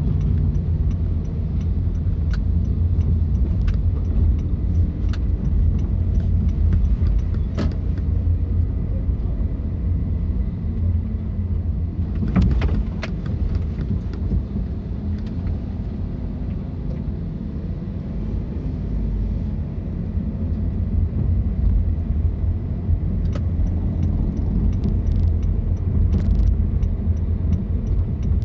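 A car driving: a steady low rumble of engine and road noise, with scattered light clicks, a cluster of them about halfway through and more near the end.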